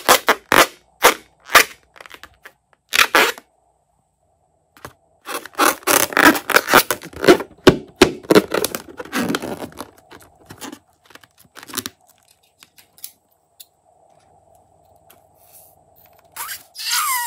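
Fingers squeezing and rubbing a liquid-filled rubber balloon: dense runs of crackling, squeaky rubber noises in two long stretches, thinning out later. A pitched squeal begins near the end.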